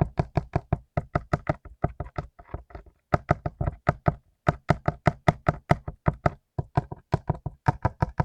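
Mechanical keyboard with clicky blue switches being typed on fast, about six or seven keystrokes a second, with short pauses about three seconds in and again near six and a half seconds.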